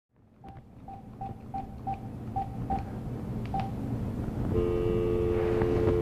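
Telephone: a run of about eight short, same-pitch beeps with clicks as keys are pressed. From about four and a half seconds in comes a steady two-tone dial tone.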